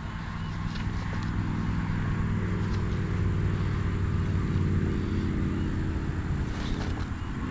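An engine running, growing louder to a peak about halfway through and then fading away.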